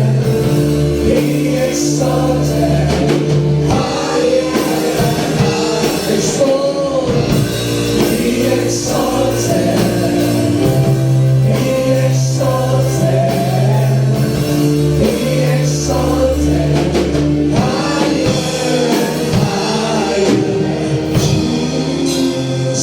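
Slow worship song: a band holds sustained chords over a steady bass while voices sing, with a bright high accent about every two seconds.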